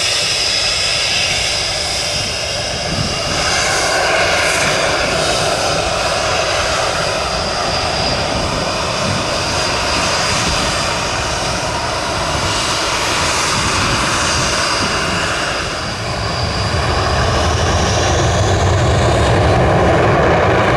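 Panavia Tornado IDS jet with its twin RB199 turbofan engines running loud and steady, with a high turbine whine over a rushing roar. About three-quarters of the way in the whine rises in pitch and the low rumble grows louder.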